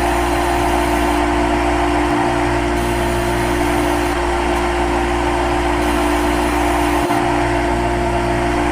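CNC lathe running with a steady hum and whine of constant pitch.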